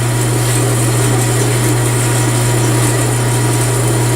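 Horizontal metal-cutting bandsaw running steadily, a constant low machine hum with no change in speed or load.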